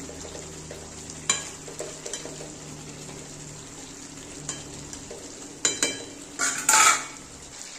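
Chicken and potatoes sizzling in a kadai as a metal spatula stirs and scrapes against the pan, with a few light clicks and then louder scraping strokes near the end. The masala and meat are being dry-fried (kosha) in their own juices, with no water added.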